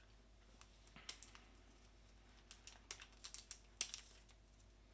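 Faint, scattered clicks and light taps of a small cardboard caramel box being opened and shaken, with individually wrapped caramels tipping out. The clicks come closer together in the second half, the loudest a little before the end.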